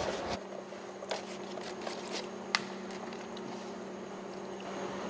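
Chopsticks stirring noodles in paper instant-noodle cups, with a few light clicks and one sharper tap about two and a half seconds in, over a steady low hum.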